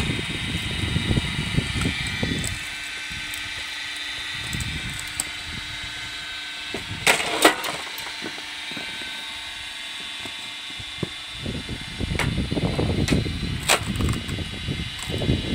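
Electric rack-and-pinion log splitter: the toothed rack drives the ram with a grinding mechanical clatter for the first couple of seconds, then the motor runs on with a steady hum while split wood clatters down about seven seconds in. Near the end the ram drives again, with a sharp crack as it bites into a new log.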